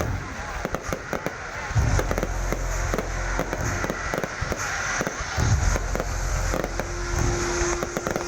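Fireworks display: dense crackling of bursting stars, with a deep boom from a bursting aerial shell about every two seconds.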